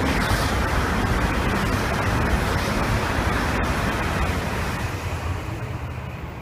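E2 series Shinkansen passing at speed on the high-speed line, a steady rushing noise of wheels and air that fades over the last couple of seconds as the train draws away.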